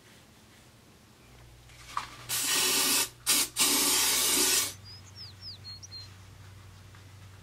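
An aerosol spray can hissing in three spurts, the first about a second long, separated by two very short breaks, with a short click just before. A few faint, high, short chirps follow.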